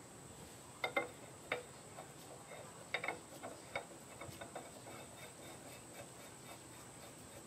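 Sharp metallic clicks and taps as a small screw-in lawn mower muffler is handled and threaded into the engine's exhaust port. There are a few louder clicks in the first three seconds, then lighter, scattered ticks that die away.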